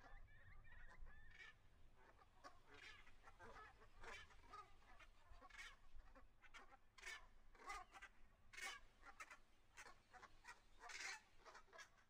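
Faint calls of a flock of wildfowl honking at irregular intervals, several calls a second at times, loudest near the end.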